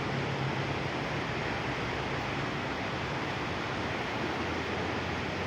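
Floodwater of a swollen river rushing past: a steady, even rushing noise of water.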